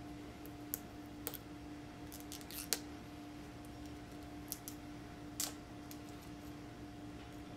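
Plastic shrink-wrap on a DVD case being picked at and peeled: a handful of sharp crackles and clicks, the loudest just under three seconds in.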